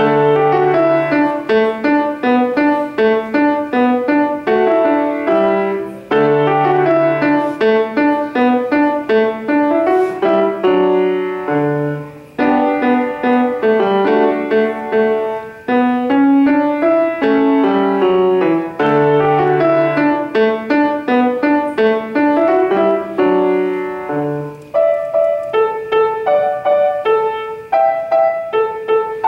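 Grand piano played solo by a young student: a brisk piece built of repeating phrases about six seconds long, with quick runs over lower held notes. About 25 seconds in, the playing thins to shorter separate notes and chords.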